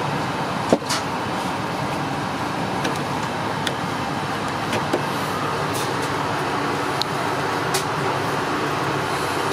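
Steady background noise inside an Airbus A380's cabin, with a few light clicks and taps, a sharper one about a second in.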